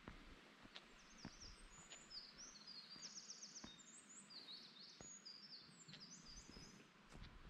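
Faint, slow footsteps on rock and dry leaves, with a small songbird singing a long run of rapid, high, chattering notes over them from about a second in until near the end, and a faint hiss of running water.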